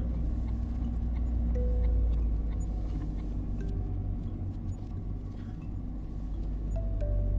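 Steady low rumble of a car driving, its engine and road noise heard as a constant hum. A soft melody of a few sustained notes sits faintly on top.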